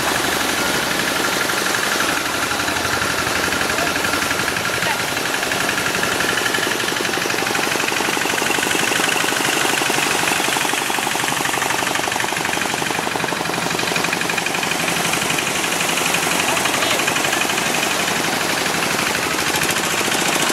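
A boat's engine running steadily with a fast, even knocking beat.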